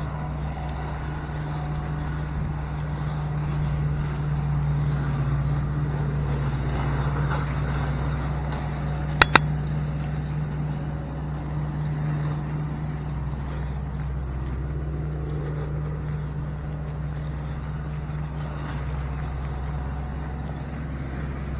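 Engine of a slow-moving vehicle running steadily as it drives along a rough track, with two sharp clicks in quick succession about nine seconds in.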